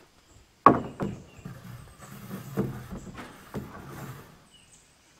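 Used 5V metal roofing panel clanking and rattling as it is handled for cutting. One hard, ringing clank comes under a second in, then several lighter knocks and a rattle over the next few seconds before it stops.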